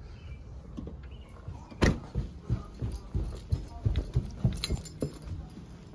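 Footsteps going down carpeted stairs: a run of soft thuds, about three a second, after a single sharper knock about two seconds in.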